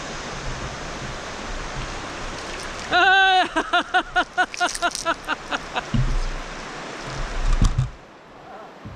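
Steady rush of river water with wind on the microphone. About three seconds in, a quick run of pitched, call-like notes, roughly five a second, fades away over a couple of seconds. Dull low wind thumps follow before the rush drops off suddenly near the end.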